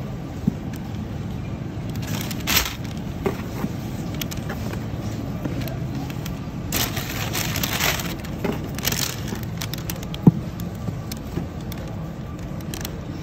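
Steady low supermarket background rumble, with rustling and small clicks as fruit is handled in a cardboard produce box. One sharp knock comes about ten seconds in.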